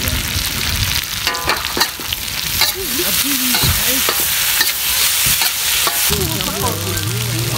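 Fish and vegetables sizzling in a steel wok while a metal spatula stirs and scrapes them around the pan, with short scraping clicks of the spatula against the metal.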